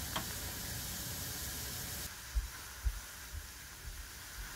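Pot of mulled wine simmering just at the boil, a soft hissing bubble, with two brief low thumps about two and a half and three seconds in.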